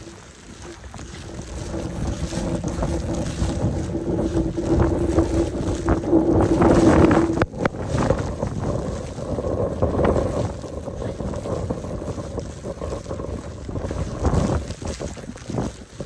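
Snowstorm wind gusting against the microphone, swelling to its loudest about six to seven seconds in. A steady low hum runs underneath and cuts off suddenly about seven and a half seconds in.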